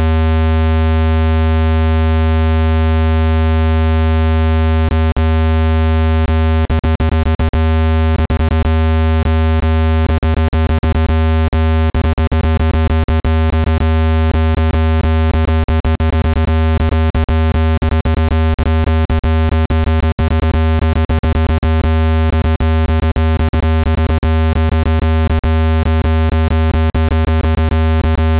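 Loud, steady, low electronic buzzing tone rich in overtones, generated to shake dust out of a phone speaker, holding one pitch throughout. From about five seconds in, clicks crackle through it, coming more and more often.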